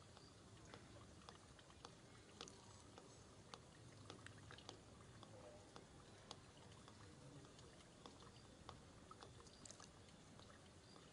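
Near silence: a faint background hiss with scattered small, irregular clicks.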